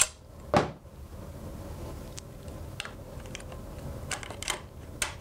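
Light metal clicks and knocks of a bicycle hub being handled and seated into a suspension fork's dropouts after the axle is pulled out. There is one louder knock about half a second in, then a few faint, scattered clicks.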